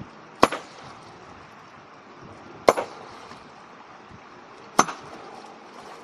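Long-handled hammer striking a river rock three times, about two seconds apart: sharp metal-on-stone cracks with a short ringing tail, over the steady rush of a shallow stream. This is hammer fishing, where rocks are struck to stun the fish sheltering beneath them.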